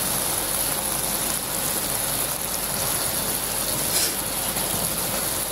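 Onion-tomato pepper masala sizzling steadily in oil in a pan while halved boiled eggs are laid into it, with one faint click about four seconds in.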